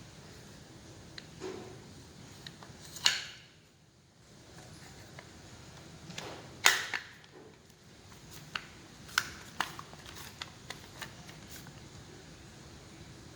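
Clicks and knocks of small hard parts being handled, with two sharper knocks about three and about six and a half seconds in, and a run of lighter clicks later.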